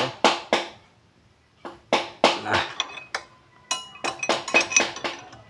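Flat steel lever knocking, scraping and clinking against the rear brake disc and caliper of a Honda Supra X 125 as it pries the caliper piston back into its bore. There is a series of sharp metallic clicks, a few of them ringing briefly, as the stiff piston is pushed in slowly against the brake fluid.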